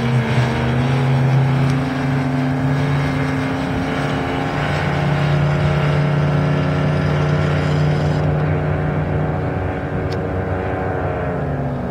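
Outboard engine of a Hydrostream Viking performance V-hull boat running flat out at speed across the water, a steady, loud drone.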